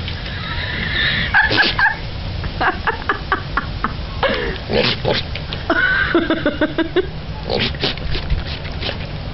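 A goat calling several times in loud cries that waver in pitch, the longest lasting about a second, around six seconds in. Short sharp clicks come between the calls.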